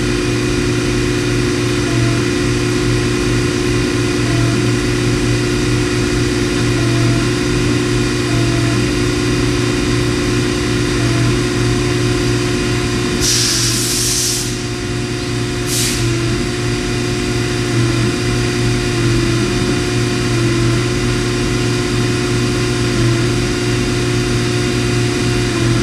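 Index GB65 CNC lathe running a machining cycle: a steady mechanical hum with coolant spraying. About halfway through comes a loud hiss lasting about a second and a half, then a second, brief hiss.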